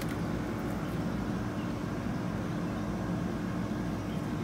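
Steady low background hum with a faint constant tone in it, unchanging throughout, with no distinct knocks or splashes.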